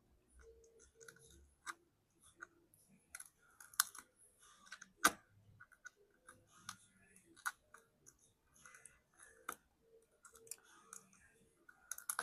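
Shattered iPhone 15 back glass crackling and clicking as a thin blade pries it off the frame. Irregular small, sharp ticks and crunches of the glass crumbling, the sharpest ones about four and five seconds in.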